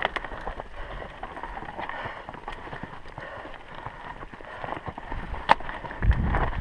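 Footsteps on a loose, stony trail with the light rattle and clicks of a mountain bike being pushed uphill. One sharp click about five and a half seconds in, and a low wind rumble on the microphone near the end.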